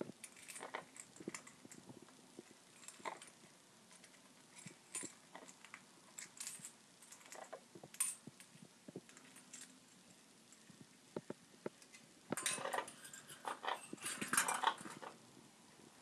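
A small bell on a parrot's cage toy jingling and clinking in scattered taps as the bird handles it, with a sharp click about halfway through. Near the end comes a louder stretch of jangling and clattering.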